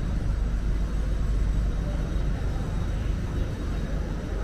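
A steady low outdoor rumble with a fainter hiss above it, even in level, with no distinct bangs or events.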